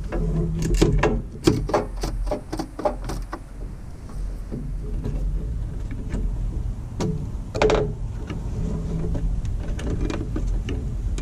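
Ratchet wrench on a long extension clicking in short irregular runs as a 10 mm bolt on the washer reservoir is worked loose, with a louder clatter of metal about seven seconds in, over a steady low hum.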